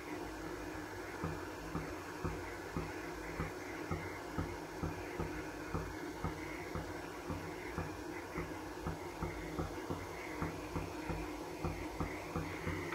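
Water simmering in the base of an open pressure cooker on a lit gas burner: a steady hiss and low hum with faint ticks about twice a second.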